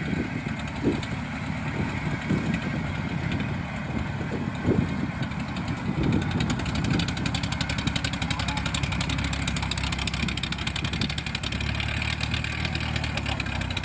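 Engine of a tracked rice-hauling machine running, with several loud knocks over the first seven seconds, then running steadily with a fast, even pulse.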